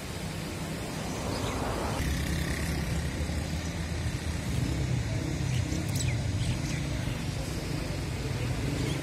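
Road traffic: a motor vehicle's engine running close by, a steady low hum that gets a little louder about two seconds in.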